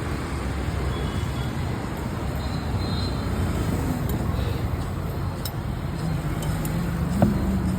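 Steady road traffic noise with a low rumble. A low steady hum comes in about six seconds in, and a single sharp knock follows about a second later.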